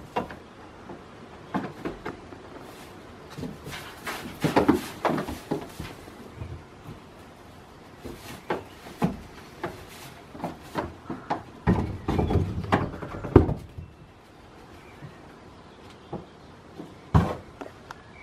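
Goats' hooves knocking and clattering on wooden ledges and boards, with hay rustling: scattered knocks, two busier flurries around five and twelve to thirteen seconds in, and one sharp knock near the end.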